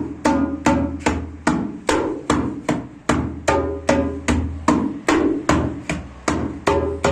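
Djembe played by hand in a steady rhythm, about two to three strokes a second, some strokes ringing with a short pitched tone.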